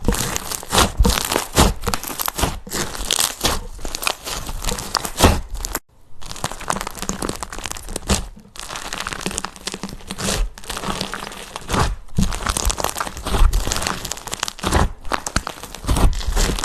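Slime being squished and stretched by hand, giving dense crackling, crunching and popping, with a brief break about six seconds in.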